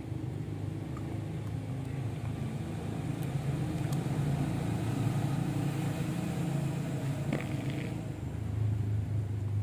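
A steady low hum of an engine or motor running, a little louder in the middle and again near the end, with a few faint clicks over it.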